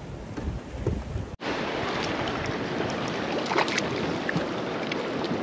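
Small waves slapping and splashing against a fishing kayak's hull, with wind on the microphone; the splashing becomes louder and closer about a second and a half in.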